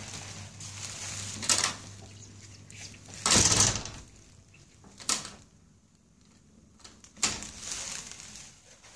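A cat pawing and scrabbling at a glass door: four short scratchy bursts of paws against the glass, the loudest about three and a half seconds in.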